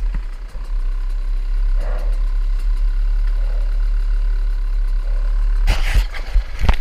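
Off-road motorcycle engine idling with a steady low rumble, with rougher bursts of noise near the end.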